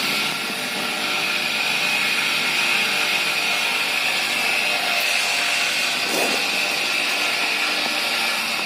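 Electric polishing machine running steadily with a high whine, buffing motorcycle engine parts with polishing compound.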